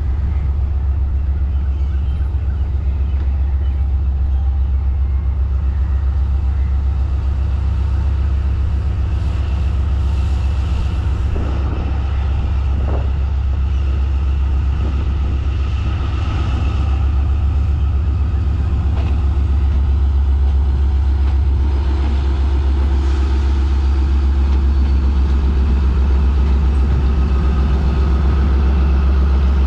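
ZCU-30 diesel locomotive No. 6352 approaching slowly with its coaches, its engine giving a steady, deep rumble that grows slowly louder as it draws near.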